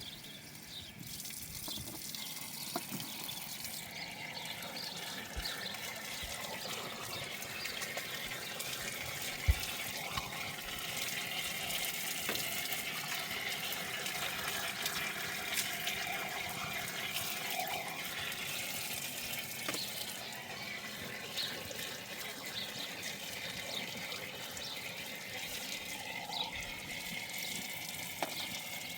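Steady running and splashing water, with scattered light clicks and a sharp knock about nine and a half seconds in.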